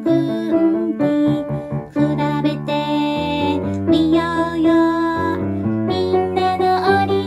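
A children's exercise song: a woman singing the melody over piano and keyboard accompaniment.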